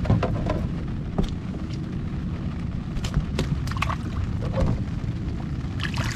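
Wind rumbling on the microphone, with scattered light knocks as a mesh fish keep net is handled against the kayak. Near the end, water splashes and pours off the net as it is lifted out of the water.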